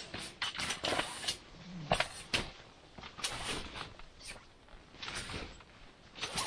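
Irregular rustling and scraping with several sharp knocks, the loudest near the end: a folding camp cot being handled and set into place on a tent floor.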